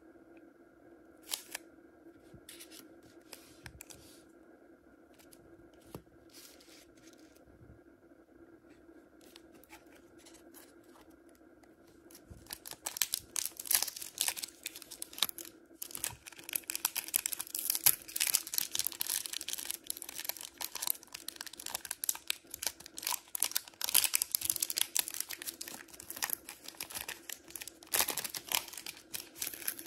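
Foil wrapper of a Pokémon trading-card booster pack handled with a few light rustles and taps, then, a little under halfway through, crinkling and tearing open with a loud, dense crackle that lasts almost to the end.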